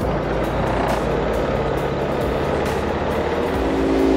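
Small boat's outboard motor running steadily under background music; a sustained chord of the music swells in near the end.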